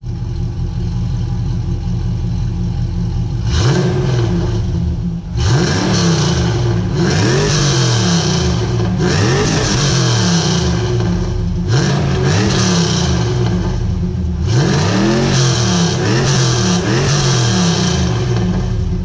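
Pontiac Trans Am WS6's LS1 V8 exhaust through freshly fitted 1 7/8-inch Speed Engineering long-tube headers, cold. It idles for a few seconds, then is revved again and again, each blip rising and falling in pitch.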